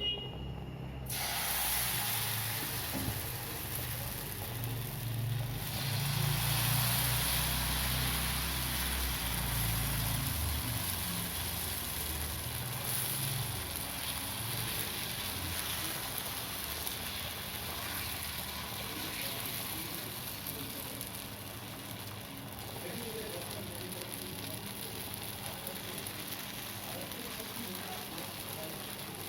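Steady sizzling of gram-flour pudla batter frying in oil on a hot pan, with a low rumble underneath during roughly the first third.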